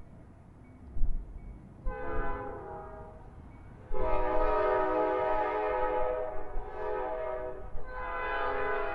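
Air horn of an approaching Norfolk Southern freight locomotive sounding a chord: a short blast about two seconds in, a long blast from about four seconds in to nearly eight, and another blast starting about a second before the end. Under it, the low rumble of the train.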